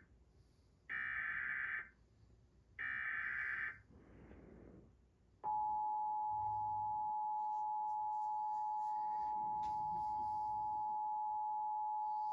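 Emergency Alert System signal from a DASDEC II encoder: two roughly one-second bursts of SAME header data, then about five and a half seconds in the steady two-tone EAS attention signal starts and holds. It announces a severe thunderstorm warning about to be read.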